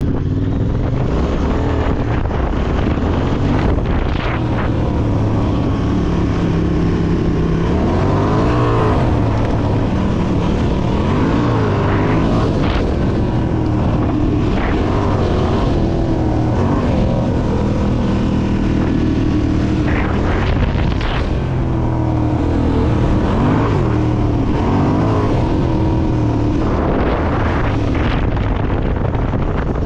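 Honda Transalp 750's parallel-twin engine running under way, its pitch rising and falling with the throttle, over a steady rush of wind and tyre noise, with a few short knocks.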